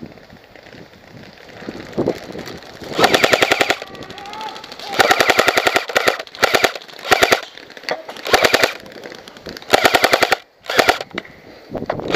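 G&G L85AFV electric airsoft rifle firing full-auto: short bursts of rapid clatter, about twenty shots a second, starting about three seconds in and repeating in bursts of under a second each.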